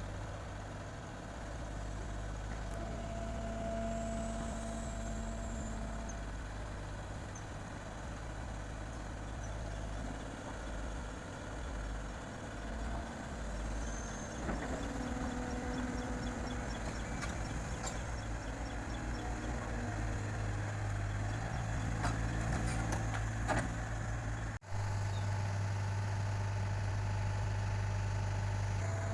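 Diesel engines of heavy construction machinery (an excavator and dump trucks) running steadily, with a few knocks a little after two-thirds of the way through and a brief cut-out in the sound near the end.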